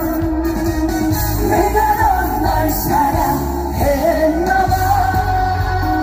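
A live song played loud over an outdoor concert sound system: a man singing with a backing track and a steady beat.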